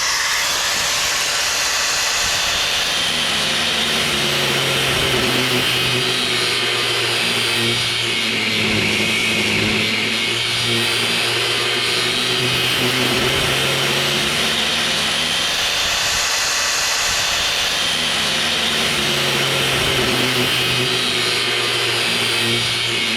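Handheld power tool running continuously under load, its motor pitch wavering up and down as it bears on stubborn fittings.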